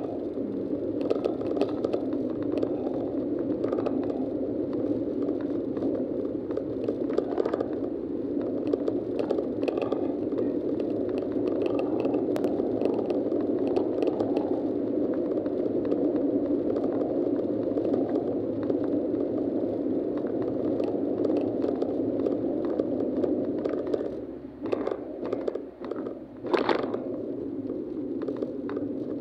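Steady drone of a car's engine and tyres heard from inside the cabin while driving at road speed, with small clicks and rattles throughout. The noise dips briefly near the end, and a single sharp knock follows.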